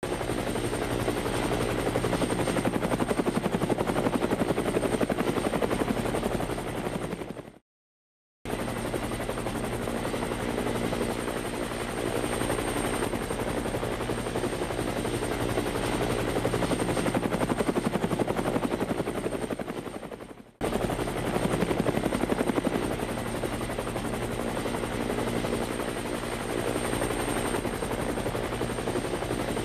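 Helicopter flight sound effect: a steady, rapid chopping of the rotor blades over a steady engine hum with a thin high whine. It fades out about seven and a half seconds in, then after about a second of silence starts again abruptly. It fades and cuts back in once more about twenty seconds in, the loop points of a repeated clip.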